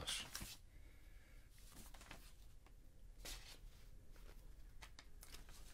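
Sheets of printer paper rustling faintly a few times as they are handled and shuffled.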